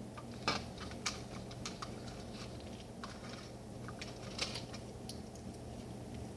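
Slime being mixed in a bowl after borax is added: irregular light clicks and taps, the sharpest about half a second in and again about four and a half seconds in, over a steady low hum.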